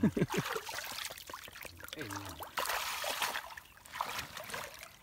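Shallow muddy water splashing and sloshing irregularly as people wade through it and grope in it by hand, louder for about a second past the middle.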